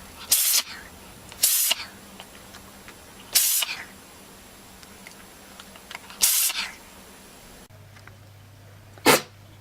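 An animal sneezing: four short, sharp sneezes one to three seconds apart, then one more near the end.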